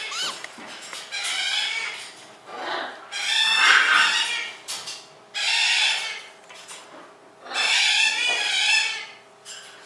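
Parrot calls: several raspy, harsh squawks about a second long each, the loudest about three to four seconds in.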